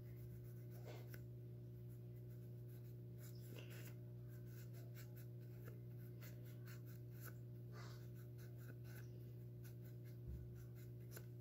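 Faint scratchy rubbing of a lint-free wipe scrubbed over fingernails with cleanser, in short irregular strokes, over a steady low hum.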